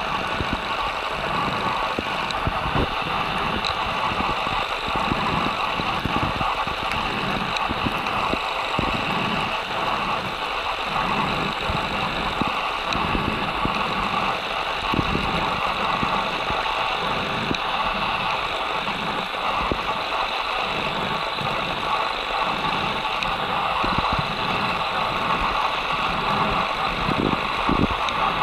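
Underwater ambient noise as picked up by a camera filming beneath the sea: a steady hiss with faint crackling ticks and an uneven low rumble.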